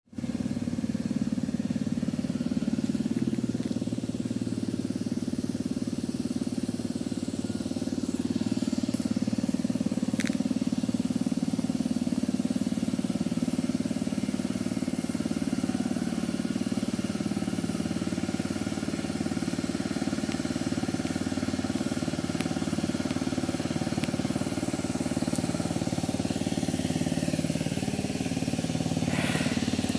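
Vehicle engine running steadily under load on a steep hill climb, its pitch shifting a little. A brief high squeak comes about ten seconds in.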